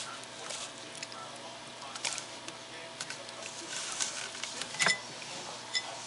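A handful of light clicks and knocks on a hard food bowl as a savannah monitor feeds on hard-boiled eggs from it; the loudest knock comes near the end.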